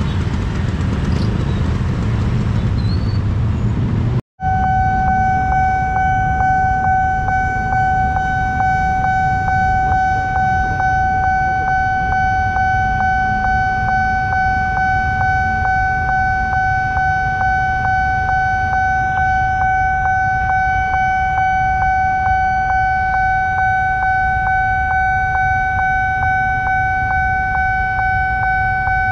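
Idling motorbike and car traffic at a railway level crossing. After a cut, the crossing's electronic warning alarm sounds: a loud steady high tone pulsing at an even rate, over the low rumble of waiting engines.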